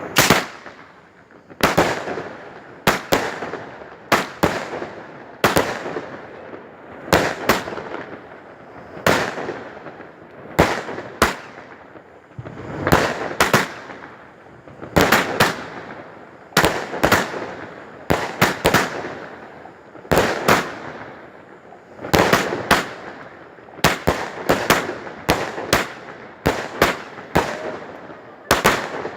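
Firecrackers going off: sharp bangs at irregular intervals, often two or three in quick succession, each with a short echo trailing after it.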